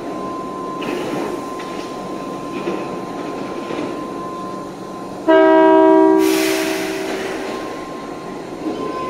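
Osaka Metro Sakaisuji Line train at the platform sounds one short, loud, steady-pitched horn blast about five seconds in, followed at once by a burst of air hiss that fades away.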